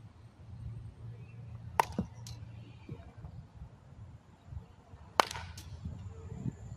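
Baseball bat hitting two pitched balls, about three and a half seconds apart. Each contact is a sharp crack, followed a fraction of a second later by a fainter knock.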